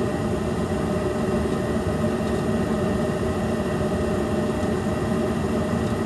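Trane S9V2 gas furnace running steadily in high fire: a continuous hum and hiss with a faint steady whine.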